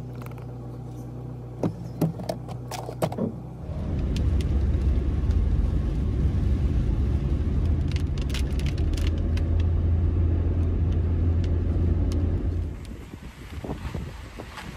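Car sounds from a drive: a steady low engine hum with a few sharp clicks and knocks, then about four seconds in a much louder low rumble of the car on the road. The rumble lasts until near the end, when it drops to a quieter, uneven rushing.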